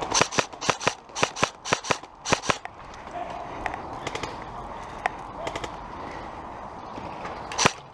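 Airsoft guns firing: a quick string of about a dozen sharp shots in the first two and a half seconds. Scattered fainter shots follow, then one loud shot near the end.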